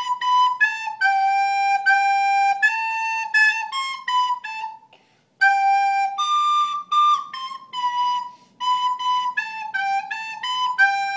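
A simple tune played on a recorder: a string of held, clear notes stepping up and down, with a short break about halfway through before the melody resumes.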